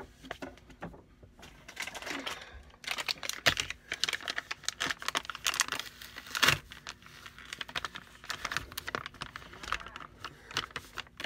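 Crinkling and rustling of a plastic makeup-wipe packet being opened and handled: a rapid, uneven run of small crackles and clicks that thickens about two seconds in, with the sharpest ones about three and a half and six and a half seconds in.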